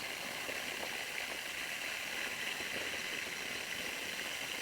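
Ujjayi pranayama breath: a steady, soft hiss of air drawn through a slightly constricted throat, the ocean-like breath sound of the practice.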